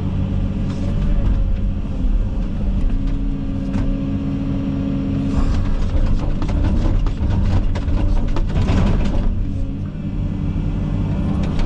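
Komatsu 360 excavator's diesel engine running steadily under load. From about halfway, a dense four-second run of cracking and clattering as the bucket and thumb chew through brush.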